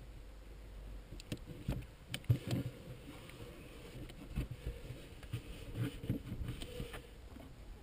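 Irregular handling noise: knocks, low thumps and rubbing as a hand moves over the RC boat's hull and the camera is shifted about. The sharpest knock comes a little over two seconds in.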